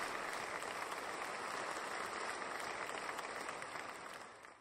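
Audience applauding at the end of a lecture, a steady dense clapping that fades out near the end.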